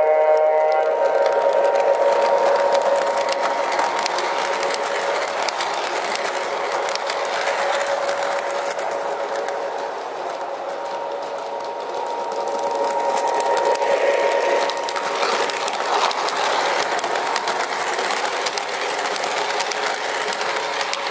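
Lionel O-gauge passenger train rolling on FasTrack plastic-roadbed track: a continuous rattling clatter of wheels over the rails with quick clicks, joined by a steady hum. It is loudest as the cars pass close, dips around ten seconds in when the track nearby is empty, then builds again.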